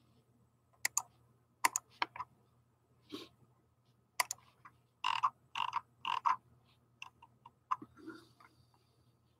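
Computer mouse clicks and keyboard keystrokes in uneven bursts, a few single clicks and then quick runs of several, the busiest about five to six seconds in.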